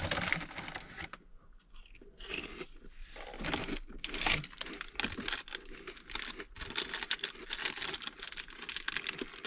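Plastic food packaging crinkling and crackling as it is handled and torn open by hand, in short irregular bursts.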